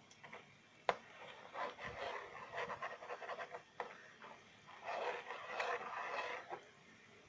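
Spoon stirring and scraping around a pan of coconut oil and fenugreek seeds heating on the stove, in irregular strokes, with a sharp click about a second in.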